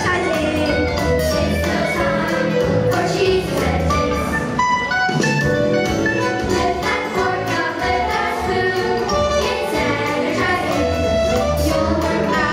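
A children's choir singing a song with instrumental accompaniment and a steady beat.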